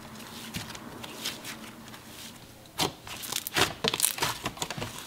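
Hands kneading and squeezing a fluffy cloud cream slime, giving soft, irregular crackling and small pops, with louder crackles about three seconds in and near the end.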